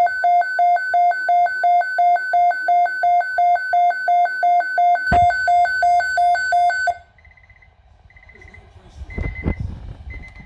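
Weather-alert alarm beeping rapidly, two tones sounding together about three times a second, stopping abruptly about seven seconds in. After it come a few faint short bleeps and a low rumble.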